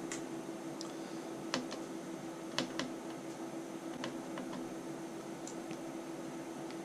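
Scattered light clicks of a number 0 Phillips screwdriver turning a tiny screw out of a laptop screen's mounting, about ten irregular ticks over a steady low hum.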